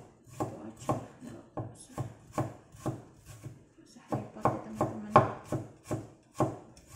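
Kitchen knife chopping on a cutting board: a steady run of sharp chops about two a second, coming a little faster after the first four seconds.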